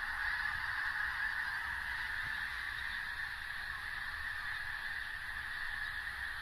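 A huge flock of snow geese calling together in flight: a dense, steady din of countless overlapping honks with no single call standing out.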